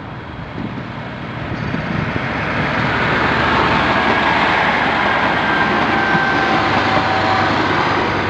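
Auckland ADL-class diesel multiple unit passing by on the rails: a steady rush of engine and wheel noise that builds over the first few seconds and is loudest in the second half as the cars go by.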